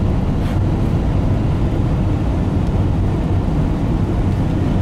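Steady engine drone and tyre and road noise inside the cab of a vehicle driving along a highway.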